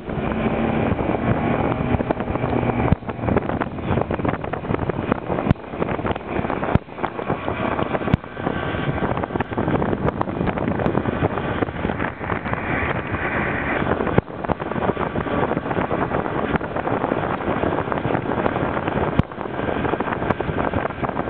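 Bass boat's outboard motor running at speed across open water, with wind buffeting the microphone throughout.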